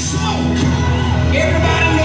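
Loud music playing through a hall's sound system: a singer's voice over a heavy, steady bass line.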